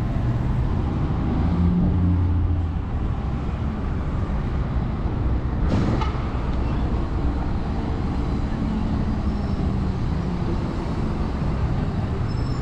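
Street traffic: vehicle engines rumbling as cars and heavier vehicles pass, with a low engine hum swelling about a second and a half in. A single sharp knock about six seconds in.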